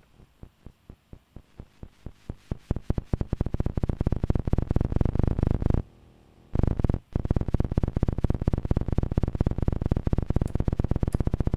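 Electronic feedback tone from a Lite2Sound BC photodiode amplifier watching a Tektronix 2225 oscilloscope's screen: a train of sharp clicks, about four a second at first, quickening into a rough buzz. It cuts out for about half a second near the middle, then returns as a steady, rapid buzz.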